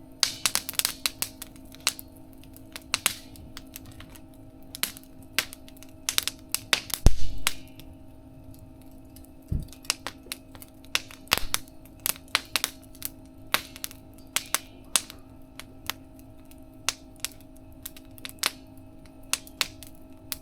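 Burning firewood crackling and popping irregularly, with a heavier low thud about seven seconds in and a steady low hum underneath.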